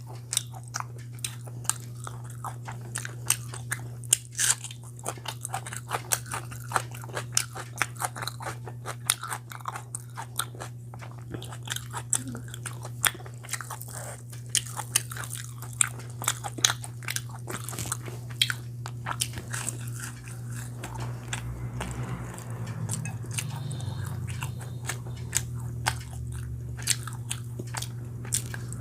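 Close-up mukbang eating sounds: a person biting and chewing, with many irregular sharp crunches and wet clicks, over a steady low hum.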